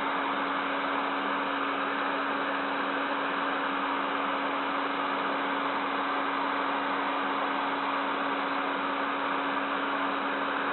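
PC case fan running steadily, heard about 10 cm away: an even rush of air with a steady low hum under it. The airflow has been straightened so that there is no air turbulence.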